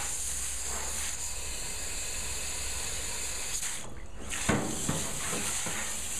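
Garden hose trigger spray nozzle hissing as a jet of water rinses loosened rust off a cast iron BBQ burner. The spray stops for a moment about four seconds in, then starts again with a short knock.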